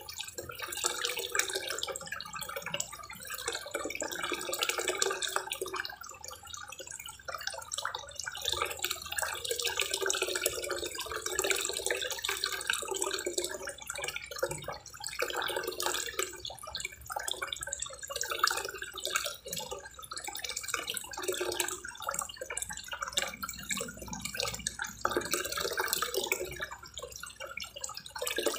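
Water pouring from a small sheet-waterfall spout into a koi pond, splashing continuously.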